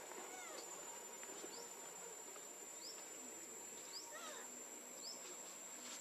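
Faint outdoor ambience: a steady high-pitched insect drone, with short rising chirps about once a second and a few faint squeaky calls.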